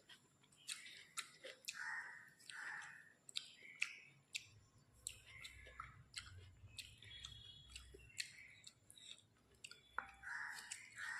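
A person chewing a mouthful of rice and curry close to the microphone: soft wet mouth sounds and lip smacks with many sharp little clicks.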